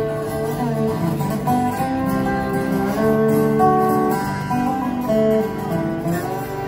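Acoustic guitar music: plucked and strummed notes playing steadily, a melody of held, ringing notes.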